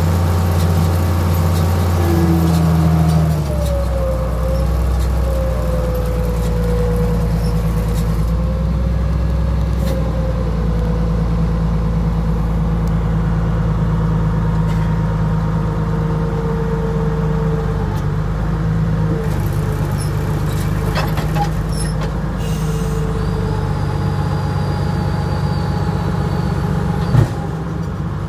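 Tractor engine running steadily while driving a round baler, heard from inside the cab. The engine note and level drop a few seconds in, and a single sharp clunk comes near the end.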